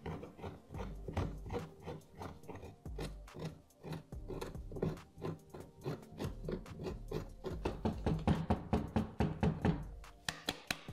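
Gloved hands handling a dirty leather sneaker, working loose dirt and fibres out of the inside and shaking them out. A string of soft irregular knocks and rustles that come more quickly near the end.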